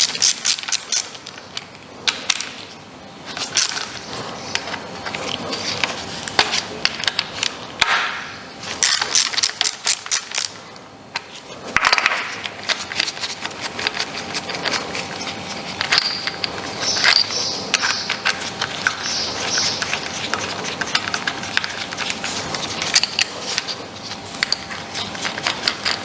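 Ratchet wrench with a 10 mm socket clicking in quick runs, with metal scrapes and clinks of the socket and bolts, as the ignition coil pack bolts are undone from the valve cover.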